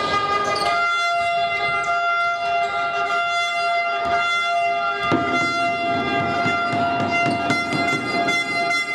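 A steady held tone of several pitches at once sets in just under a second in and holds, sounding like a siren or a long held chord. Beneath it, basketball bounces and knocks come from play on a hardwood court, clearest about four and five seconds in.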